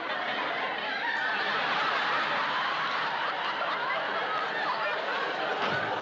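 Sitcom studio audience laughing: one long, steady wave of laughter.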